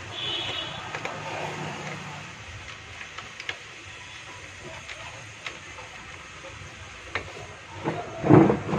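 Screwdriver tightening the screw that holds a 5-volt LM voltage regulator to a car stereo's metal heat sink: a few faint, sharp metal clicks a second or two apart, over a steady background with a short high horn-like beep at the start and a louder burst near the end.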